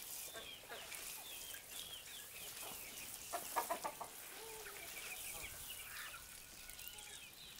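Chickens clucking, with a cluster of louder clucks about three and a half seconds in, over a steady run of short high peeps from young poultry.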